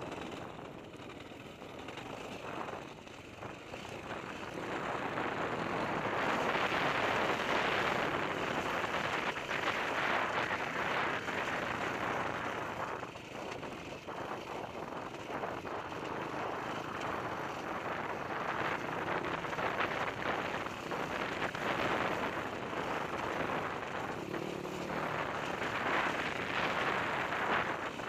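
Dirt bike engine heard from a camera mounted on the bike, revving up and easing off again and again as it rides, quieter for the first few seconds.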